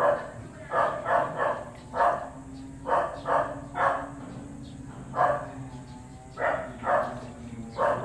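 A dog barking repeatedly: about a dozen short barks, irregularly spaced and often in quick runs of two or three.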